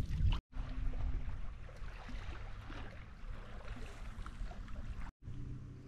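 Water splashing and trickling around a paddled canoe, over a low rumble. The sound cuts out abruptly twice for a moment.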